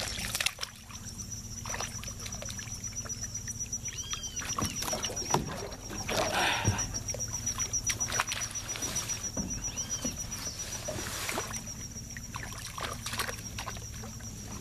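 Water splashing and sloshing beside a small boat as a fish thrashes and swims at the surface, loudest about halfway through. A steady high-pitched buzz carries on underneath, and a bird calls every few seconds.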